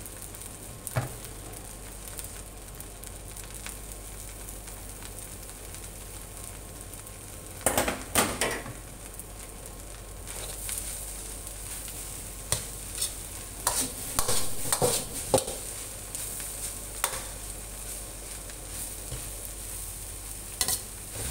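Fried rice sizzling steadily in a steel wok, with bursts of a metal ladle scraping and clattering against the wok as it is stirred and tossed, first about eight seconds in and again in several strokes from about thirteen seconds on.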